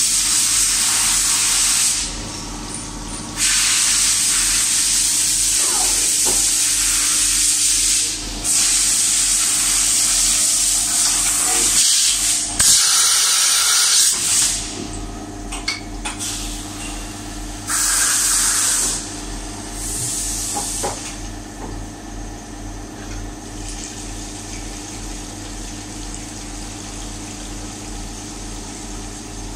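CNC vertical machining centre at work, a steady machine hum under long bursts of loud hissing spray that stop and start several times; the hissing ends about two thirds of the way through, leaving the hum.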